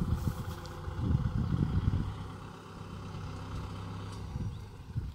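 Kubota M6040SU tractor's diesel engine running steadily under load as it pulls a disc implement through dry, hard soil. Irregular low buffeting rises over the engine hum about a second in.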